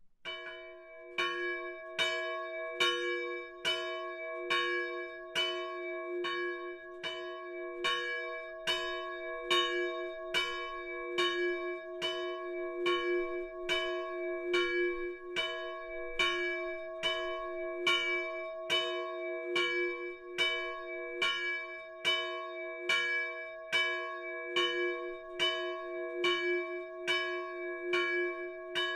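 A 170 kg bronze church bell tuned to C-sharp, cast by Nemes Tatár János in 1840, swinging under an electric linear motor and ringing in an even rhythm of a little more than one stroke a second. The first stroke comes right at the start.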